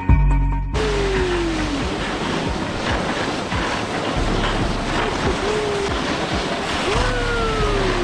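Wind rushing over the microphone and a sled hissing over packed snow as it slides downhill, with irregular bumps. A couple of short falling voice-like calls, about a second in and near the end. Background music cuts off under a second in.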